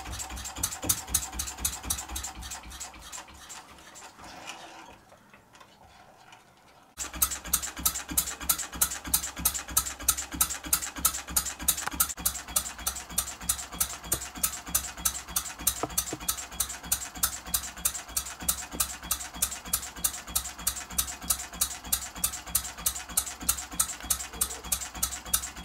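Small single-cylinder model diesel engine (20 mm bore, 40 mm stroke) beating under load. Right after its safety valve opens, the beats fade away over a few seconds to near quiet. About seven seconds in, the engine is suddenly heard running again, with an even clatter of about four beats a second.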